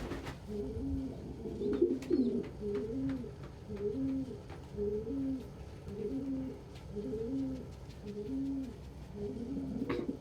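Male domestic pigeon cooing over and over in a courtship bow-coo, a low rolling coo phrase repeated about once a second.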